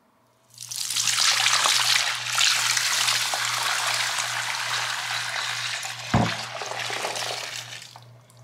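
Dirty mop water poured from a mop bucket into a bathroom sink, a steady splashing gush that starts about half a second in and tapers off near the end. A single knock comes about six seconds in.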